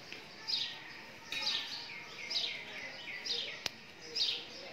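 A bird calling over and over outdoors: five short, high chirps that fall in pitch, about one a second, with a single sharp click about three-quarters of the way through.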